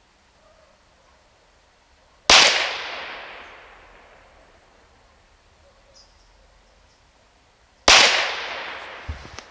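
Two shots from a .22 PCP air pistol built on a Huben K1 action, about five and a half seconds apart: each a sharp crack followed by a long fading tail.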